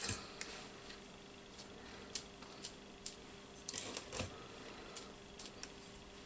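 Stainless steel spring-lever ice cream scoop scraping and clicking against a stainless steel mixing bowl while scooping cookie dough: scattered light clicks and scrapes, thickest a little before the middle, over a faint steady hum.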